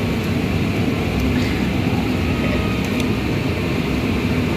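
Steady mechanical drone with a low hum, unchanging throughout, with a few faint light clicks.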